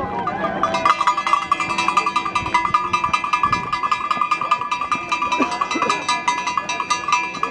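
A spectator's cowbell rung rapidly and without a break, starting just under a second in.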